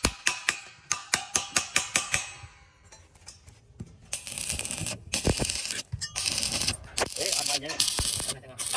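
Rapid hammer taps on a galvanized steel bracket and post, about five a second and ringing, for the first two seconds. From about four seconds in, a stick-welding arc crackles and hisses in short runs that start and stop as the bracket is tacked to the post.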